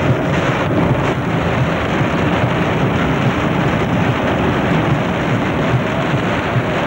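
Steady rumble and hiss of a vehicle driving along a wet gravel road, heard from inside the cab.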